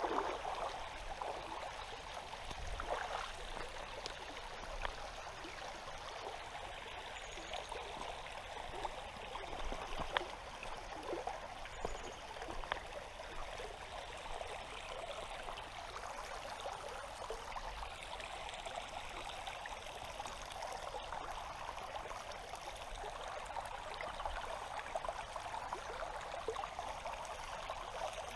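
Shallow, clear river water running steadily over and between limestone rocks, a constant rushing trickle.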